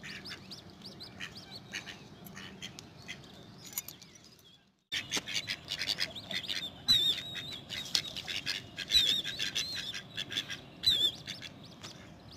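Ducks, mostly mallards, calling by the water: short quacks and clicks, then busier and louder calling with high wavering chirps after a brief dropout about four and a half seconds in.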